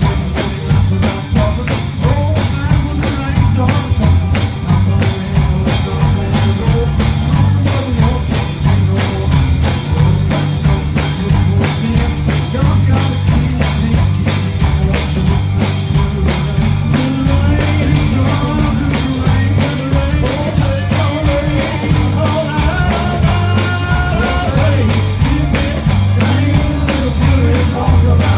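Live church gospel band playing an upbeat song: a drum kit keeps a fast, steady beat over a heavy bass line, with voices singing.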